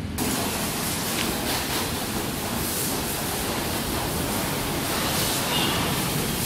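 High-pressure water spray hissing on a car, a loud steady hiss that starts abruptly just after the start.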